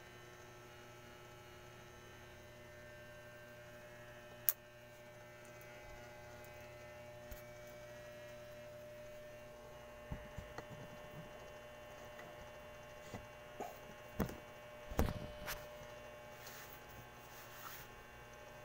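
Steady electrical hum, with one sharp click about four and a half seconds in and a scatter of knocks and bumps in the second half as the phone is moved and handled.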